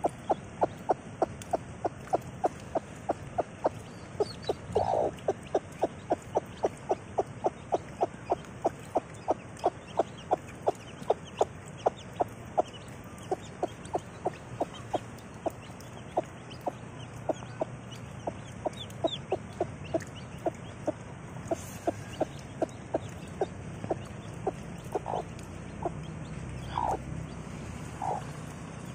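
Mother hen clucking in a steady run of short clucks, about three a second, which thin out about halfway through, with a few longer drawn-out calls mixed in.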